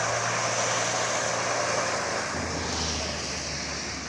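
Mahindra Thar's engine running under an even noisy rush. A little over two seconds in, its low hum drops to a lower steady note as the revs come down.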